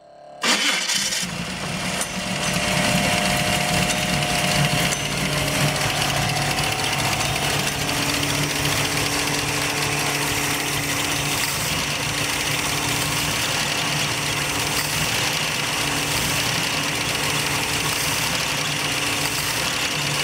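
Carbureted Chevrolet V8 in a 1991 Camaro on a cold start: it fires about half a second in and settles into a steady idle.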